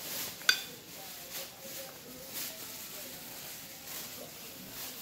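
Kitchen shears cutting into a cooked king crab leg: a sharp click with a brief ring about half a second in, then soft cracking and scraping of the shell.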